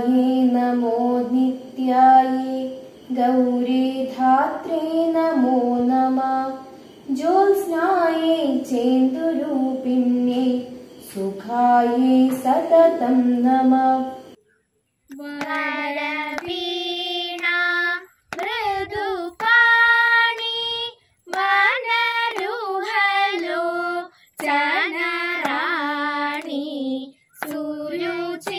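A girl singing a devotional song solo in held, wavering phrases. About halfway through it breaks off, and a higher child's voice takes up singing in short phrases with brief pauses.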